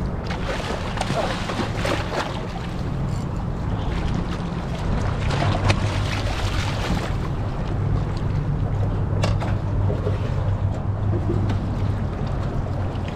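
Hooked black drum thrashing at the water's surface, water splashing in several short bursts, and scooped into a landing net near the end, over a steady low rumble.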